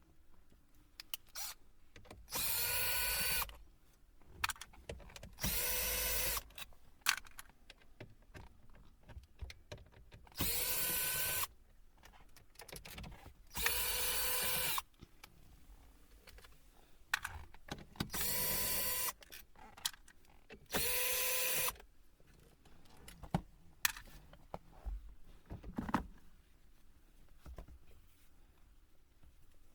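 Cordless electric screwdriver running in six short spins of about a second each at a steady pitch, with small clicks and knocks of handling in between.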